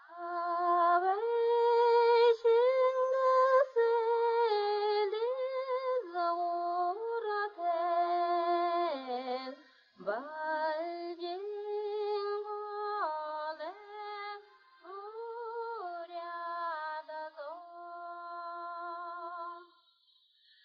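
A woman singing a slow melody without accompaniment: long held notes with ornamental turns and vibrato, broken by a short pause about halfway through. The song stops just before the end.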